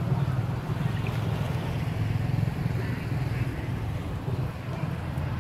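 Steady low rumble of outdoor background noise, with no distinct calls or impacts.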